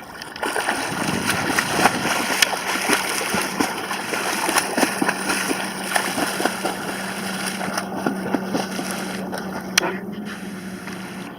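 Continuous splashing of a swimmer doing front crawl in the sea, arms pulling through the water and legs kicking without pause, thinning out near the end. A steady low hum runs underneath.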